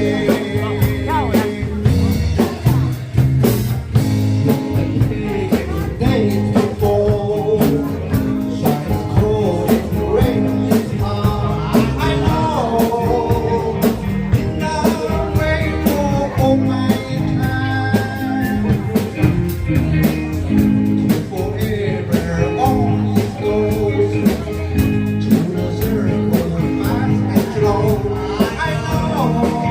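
Rock band playing a song, with a singer over guitar and drums.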